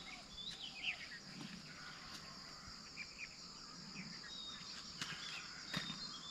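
Outdoor ambience: a steady, pulsing high insect drone, with short bird chirps scattered through it and a couple of faint knocks near the end.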